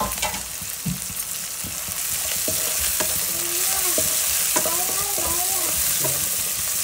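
Chopped onions and green chillies sizzling in hot oil in a nonstick kadai, stirred with a wooden spatula that knocks and scrapes against the pan now and then. The sizzle grows louder about two seconds in.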